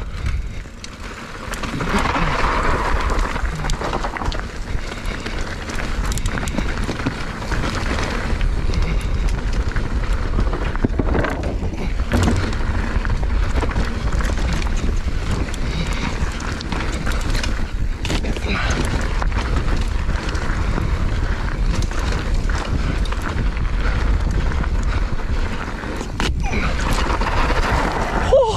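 Mountain bike ridden fast down a dirt trail: wind buffeting the camera microphone over the rumble of tyres on dirt, with scattered knocks as the bike hits bumps.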